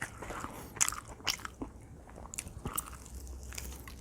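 A person chewing crunchy fried chicken up close, with short irregular crunches every half second or so.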